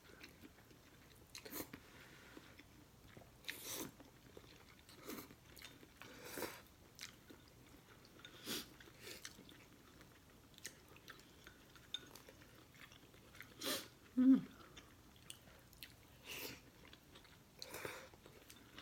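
Close-miked eating of instant noodles: chewing, with irregular short wet mouth noises about every one to two seconds.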